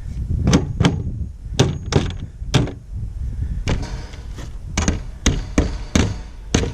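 Hammer tapping on the wooden coop door, about a dozen sharp strikes at uneven spacing.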